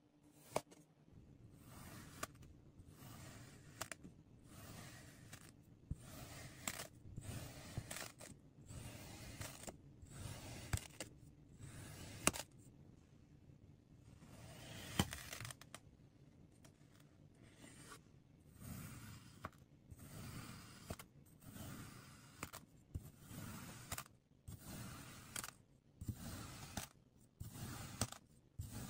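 Kinetic sand being cut and squished: a run of soft scraping strokes, about one a second, with a few sharp clicks, the loudest near the middle.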